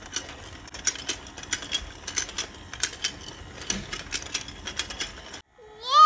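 Battery-powered rotating fishing-game toy running: its small motor and plastic gears give a rapid, irregular clicking and rattling. Near the end it cuts out and a young child's loud, high voice begins.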